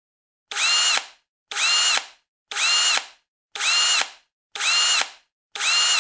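Power drill driving screws: six short whirs about a second apart, each rising and then falling in pitch.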